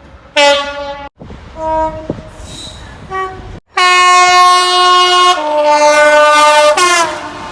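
Train horns in several short clips cut together: a short loud blast, a fainter stretch with a distant horn, then a long loud two-tone blast that steps from the high note down to the low note and briefly back up to the high note near the end.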